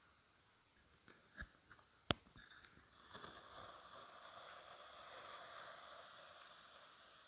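Kinetic sand being cut and scooped: a few soft taps, then one sharp click about two seconds in, followed by a soft, steady crumbling rustle that slowly fades.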